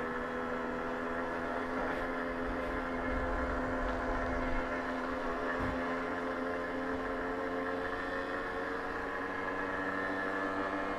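Babetta 210 moped's small two-stroke single-cylinder engine running steadily under load while climbing a steep hill.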